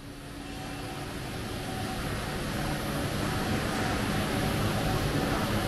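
Steady drone of industrial machinery in a workshop hall, with a few faint steady hum tones, fading in over the first couple of seconds.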